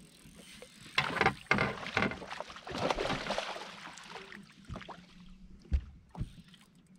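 Water splashing against a fishing boat in two bursts, the second longer, followed by two sharp knocks near the end.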